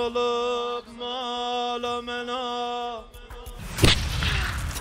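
A voice chanting long held notes with small ornamental turns, in a Middle Eastern style, for about three seconds. A little before the end there is a sudden loud hit followed by a rushing noise.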